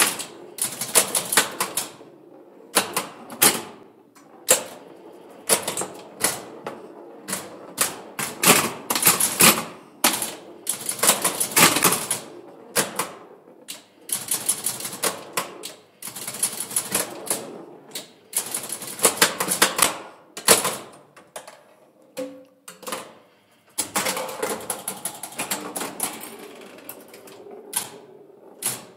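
1965 Bally Six Sticks electromechanical pinball machine in play: rapid mechanical clicking and clattering in bursts as the ball scores, with short lulls between, about halfway through and again shortly after 20 seconds in.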